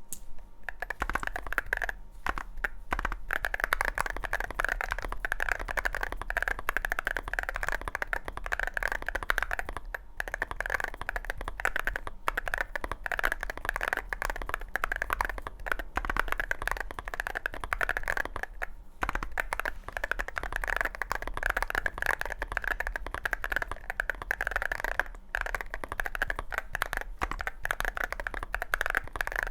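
Continuous fast typing on a Chilkey SF60 aluminum keyboard with WS Poseidon magnetic Hall-effect switches and CNC aluminum keycaps: a dense, steady stream of keystrokes that starts about half a second in.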